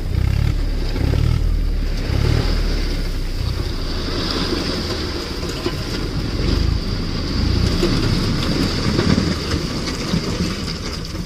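Tractor engine running while its raised tipping trolley dumps a load of soil, the earth sliding and pouring out with a steady rushing noise over the engine's low rumble.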